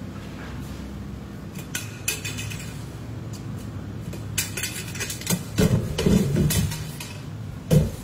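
A few light metallic clinks and knocks from an empty aluminium drink can against an overflowing kitchen trash bin, with a louder cluster of knocking and rustling a little past halfway.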